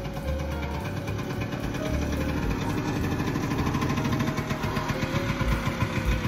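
Piaggio Ape 50 three-wheeler's small two-stroke engine running as the truck, carrying a full load of rubble, drives up and past. It grows louder about two seconds in as the truck draws close.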